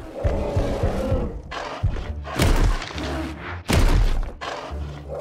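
Heavy cartoon impact sound effects: a quick run of thuds, then two louder, longer booms about two and a half and nearly four seconds in, over background music.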